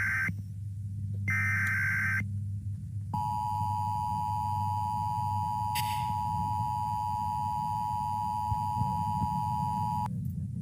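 Emergency Alert System tones: two short, high, warbling bursts, then the EAS two-tone attention signal (853 and 960 Hz) held steady for about seven seconds before it cuts off abruptly, over a low steady hum.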